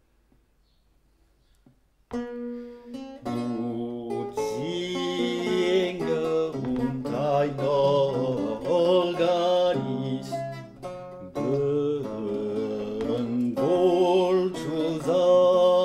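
Renaissance lute plucked in chords and melody, with a man's voice singing over it in a German Renaissance villanella. The music begins about two seconds in, after near silence.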